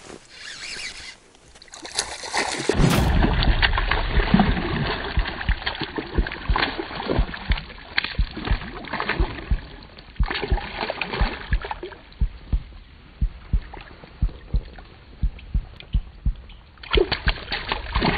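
Slowed-down water splashing and sloshing as a fish thrashes at the surface on a lure, the splashes coming thick and irregular and sounding dull with the top cut off. It starts abruptly a few seconds in and gives way near the end to the fuller, ordinary river sound.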